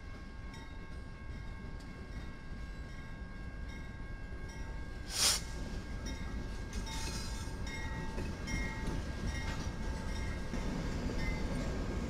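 Diesel-electric freight locomotives rumbling past at low speed, with the train's cars rolling behind them. A short, sharp, loud burst of noise comes about five seconds in, and brief high-pitched squeals follow a little later.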